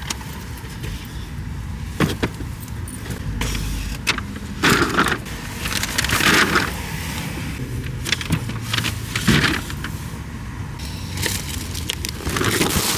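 Shopping being loaded into a car's trunk: paper bags rustling and several thuds as items are set down, over a steady low rumble.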